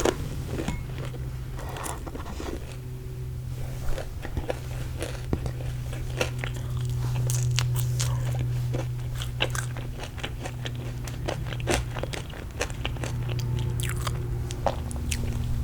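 Close-miked chewing of crunchy fried food: irregular crisp crunches and bites, some sharper and louder, over a steady low hum.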